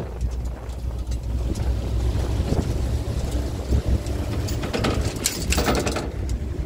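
Wind buffeting the microphone: a steady low rumble, with a few louder, hissing gusts about five to six seconds in.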